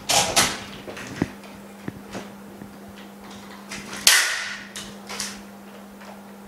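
Steady low hum of the LCD separator's built-in vacuum pump. Over it come sharp clicks and short hissing rushes of handling and air, the loudest about four seconds in, fading over most of a second.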